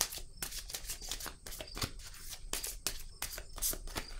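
Deck of oracle cards being shuffled by hand: an irregular run of quick, crisp card flicks and slaps.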